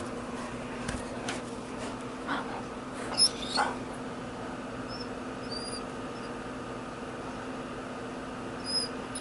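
Dog barking sound effects played quietly through a computer's speaker: a few short, thin, high-pitched yips, the loudest about three seconds in, over a steady hum.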